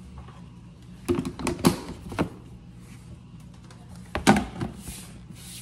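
Knocks and clatter of a large plastic sugar bin being handled: its lid is worked and the bin is picked up off the counter. The knocks come in two bunches, about a second in and again around four seconds.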